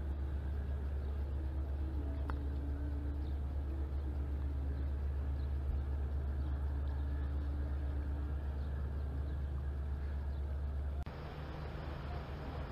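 Steady low drone of a river cruise ship's engines. The drone changes abruptly a little over ten seconds in and continues more weakly.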